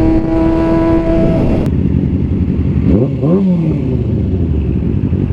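A vehicle engine is held at a steady high pitch and cuts off abruptly about a second and a half in. Then comes a low engine rumble with one quick rev that rises and falls about three seconds in.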